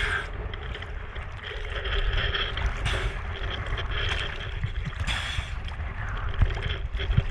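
Choppy sea water sloshing and splashing around a camera held at the surface, with a steady low rumble of wind on the microphone.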